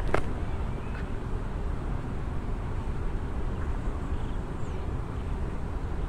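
Bees buzzing among the blossoms of a white ipê tree, under a steady low rumble that is the loudest thing heard; a short sharp sound right at the start.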